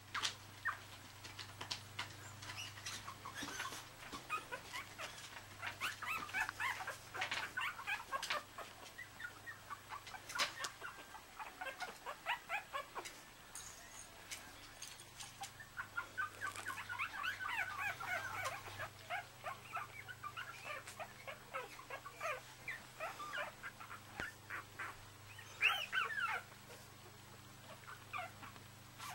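Young Yorkshire terrier puppies whimpering and squeaking in short, high cries, with scattered small clicks and rustles. One louder cry comes near the end.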